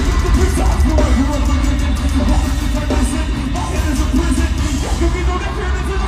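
Metalcore band playing live: distorted electric guitars, bass and drums, with harsh, yelled vocals over them.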